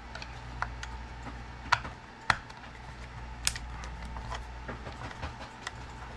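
Small screwdriver working the screws out of an alarm clock's plastic case: scattered light clicks and taps of metal on screw and plastic, a few sharper ones, over a steady low hum.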